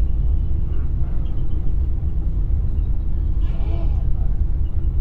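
Steady low rumble of engine and tyre noise inside an air-conditioned intercity coach bus cruising at highway speed.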